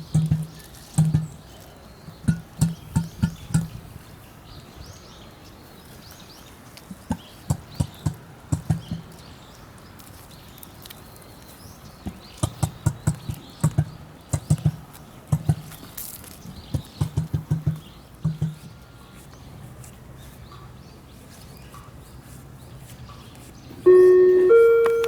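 Emu's low drumming call: runs of quick, deep pulses, several a second, with pauses between the runs. Near the end, loud music with held, stepping notes comes in.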